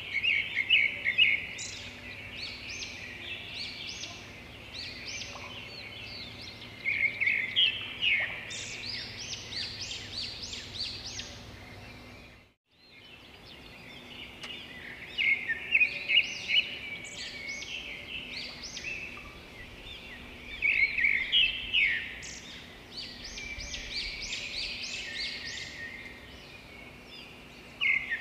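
Birds chirping in repeated bursts of short, high chirps over a steady background hiss, with a brief cut-out to near silence about halfway through.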